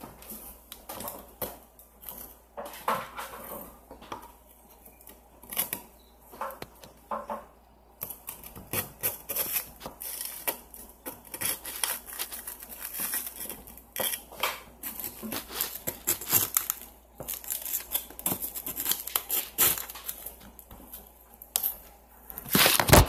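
Close-miked ASMR tapping and scratching: fingernails and a small metal blade clicking and scraping on hard surfaces right at the microphone, in an irregular run of short taps and scrapes, with a louder clatter near the end.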